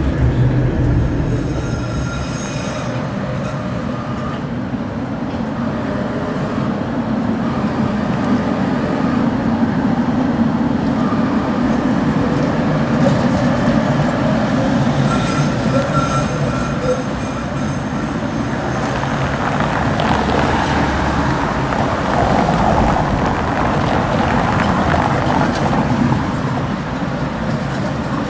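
Trams running on city street track: a steady rolling rumble from wheels on rails, with brief high wheel squeals about two seconds in and again around fifteen seconds. In the later part, Tatra T3 trams pass along with road traffic.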